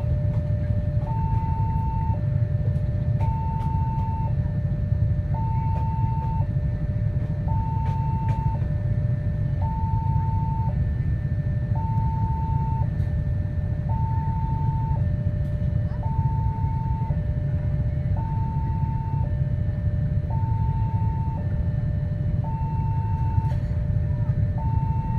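Railway level-crossing alarm ringing its two-tone warning, a higher and a lower tone alternating about once a second each, repeating steadily: the crossing signal for a train that is about to arrive. Beneath it is a steady low rumble.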